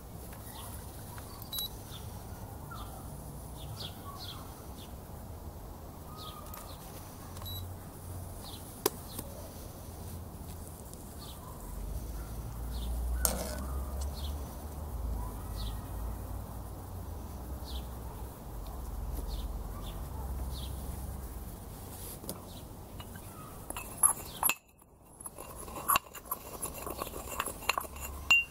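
Small birds chirping in the background: short high calls repeating every second or so, over a low rumble that swells in the middle. A metal spoon clinks against the cooking pot about halfway through as the stew is stirred, and a few sharp clinks of cookware come near the end.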